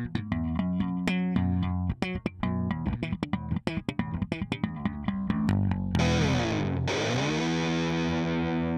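Background rock music with electric guitar and bass playing quick picked notes; about six seconds in, a held chord dips in pitch and swoops back up.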